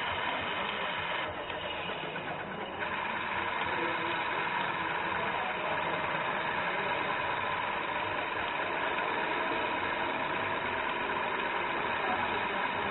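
Radio-controlled model semi truck running, its engine-sound module playing a steady simulated diesel engine, with a steady whine underneath.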